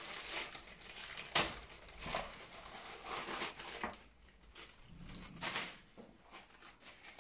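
Clear plastic packaging bags crinkling and rustling in irregular bursts as they are handled and opened, with one sharper crackle about a second and a half in.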